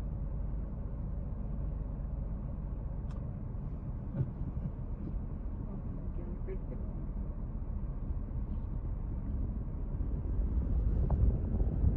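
Steady low outdoor rumble with a few faint clicks, growing a little louder near the end.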